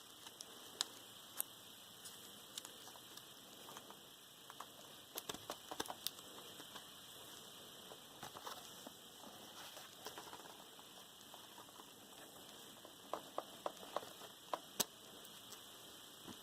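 Light handling of a graphics tablet and its accessories: scattered small clicks and taps, with a quick run of several clicks near the end, over a steady faint hiss.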